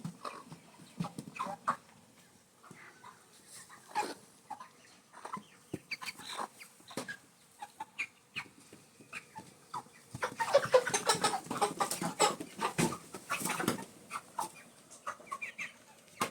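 Broiler chickens clucking in short, scattered calls, mixed with clicks and knocks. About ten seconds in, the calls and knocks grow louder and denser for a few seconds, then thin out again.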